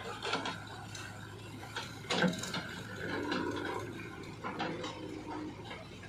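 JCB 3DX backhoe loader working, its engine running steadily under a series of metallic clanks and rattles from the bucket and linkage. The loudest clank comes about two seconds in.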